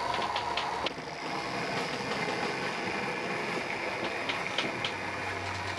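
Rivarossi O-gauge Rogers 4-6-0 model steam locomotive running along two-rail track: a steady motor whir with a few light clicks from the wheels on the rails.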